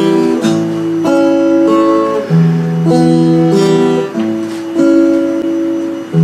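Acoustic guitar strummed, a new chord ringing out every half-second to second.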